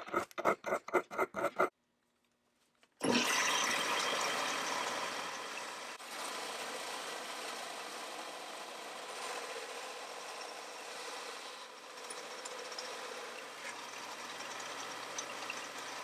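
A hand file rasping on the steel of an antique multi-tool in quick strokes, about five a second, for under two seconds. Then, after a short gap, a bench belt sander comes in loud and settles into a steady run while the tool's wing nut is held against the abrasive belt.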